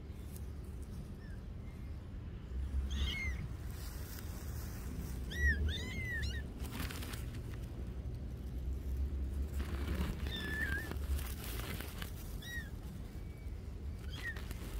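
Kittens mewing: short, high-pitched mews that rise and fall, coming in small groups every few seconds.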